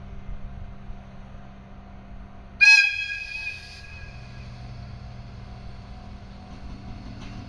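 ED75 electric locomotive's whistle giving one short blast about two and a half seconds in, over a steady low hum.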